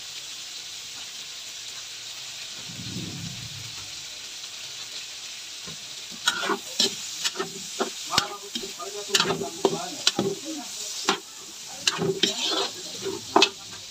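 Pork ears and onions sizzling in annatto oil in a metal wok, a steady hiss. From about six seconds in, a metal spatula scrapes and clacks against the wok in quick, uneven strokes as the pieces are stirred.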